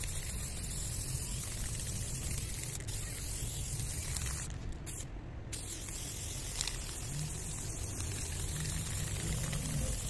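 Aerosol spray paint can hissing as paint is sprayed onto a wall in long passes, stopping briefly twice about halfway through. A steady low rumble runs underneath.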